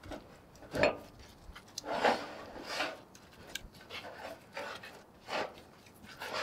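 A hand scraper working over cast-iron vise parts coated in paint remover, making irregular wet scraping strokes, about six in all, as the softened paint is scraped off.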